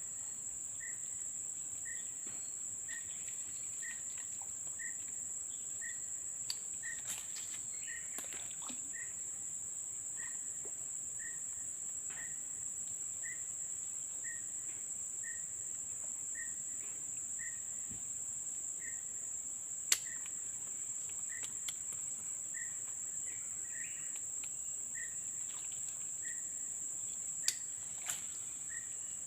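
Insects droning steadily at a high pitch, with a short chirping note repeated about once a second. A few sharp clicks stand out, one about two-thirds of the way in and two near the end.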